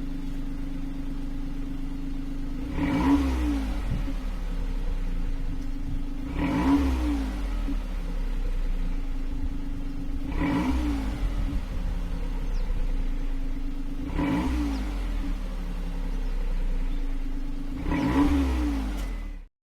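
Exhaust of a Daihatsu Mira Gino's EF-DET 660 cc three-cylinder turbo engine idling steadily, blipped five times about every four seconds, each rev rising quickly and falling back to idle.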